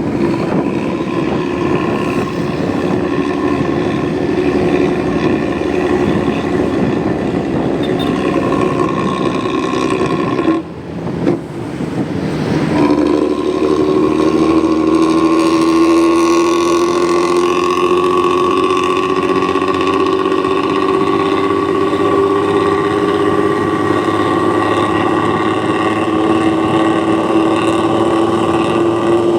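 Engine running through an aftermarket 'ngorok' (snoring-type) exhaust, a steady drone. It drops off briefly about eleven seconds in, then comes back and slowly rises in pitch.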